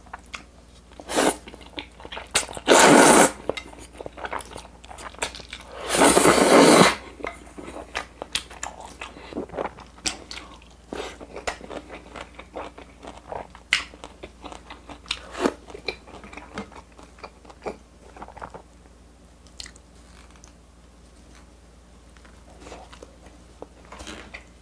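Close-miked eating of carbonara spaghetti: two loud slurps of the noodles, each lasting about a second, come about three and six seconds in. Then comes steady chewing with many short wet mouth clicks.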